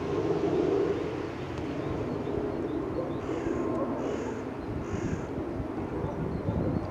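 Twin-engine jet airliner rumbling steadily as it climbs overhead after takeoff. A crow caws three times, about a second apart, midway through.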